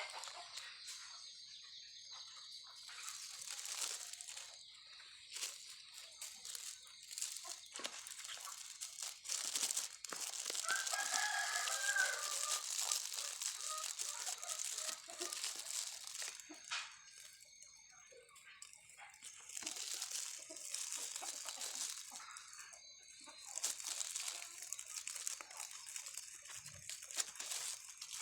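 A rooster crows once, a drawn-out call of about two seconds near the middle, over a background of faint rustling and scattered clicks.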